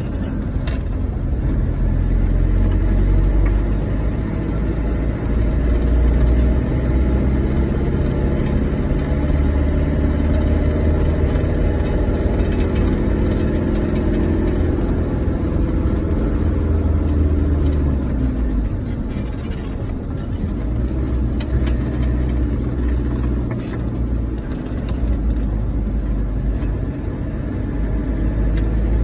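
Car engine and road noise heard from inside the cabin while driving, a steady low rumble with the engine note rising and falling gently midway.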